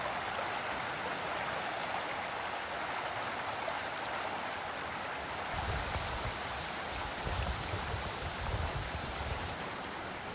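Rushing water of a swollen woodland stream in spate, a steady noise. About halfway through the sound turns hissier, with rain and low gusts of wind buffeting the microphone.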